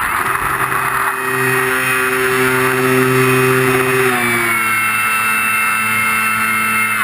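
RC model plane's motor and propeller running steadily as heard from the onboard camera, with a little wind noise in the first second. The pitch drops slightly about four seconds in as the throttle eases.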